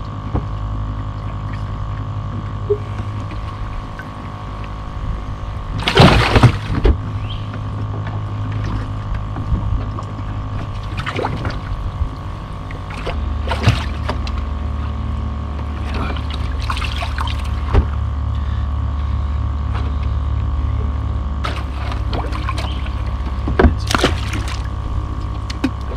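Steady motor hum on a bass boat, with knocks and clunks on the deck as a small bass is handled. A louder cluster of knocks comes about six seconds in, and a splash near the end as the fish goes back into the water.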